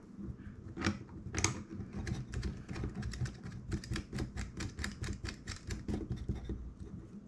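Small plastic camera mount being turned by hand: two sharper clicks, then a quick, even run of clicks, about five a second, that stops near the end.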